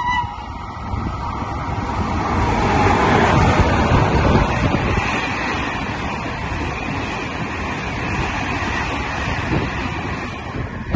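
Electric freight train passing at speed: the locomotive's pass builds to a peak a few seconds in, followed by a long string of open box wagons rolling by with steady wheel-on-rail rumble that fades near the end. A brief horn note sounds right at the start.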